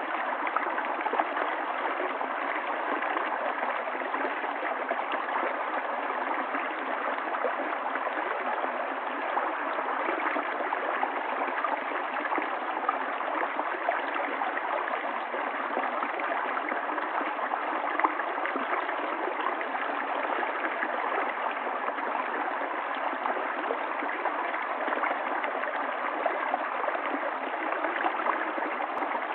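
Running water of a stream, a steady rushing with many small splashes throughout.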